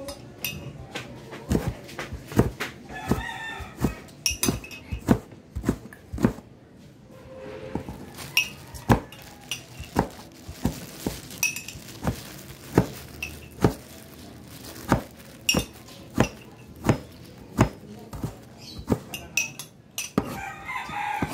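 A metal spoon clinking against a glass mug again and again as a child stirs and scoops coffee, in sharp irregular taps about one every half to one second. A rooster crows about three seconds in.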